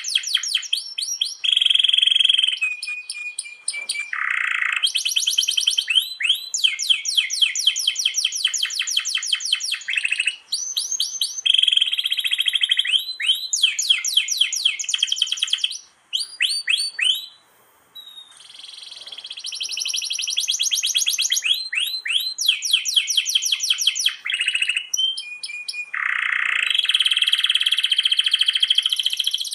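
Domestic canary singing energetically in long rolls: fast, rapidly repeated trilled notes broken by a few held whistled notes, with a short pause about halfway through.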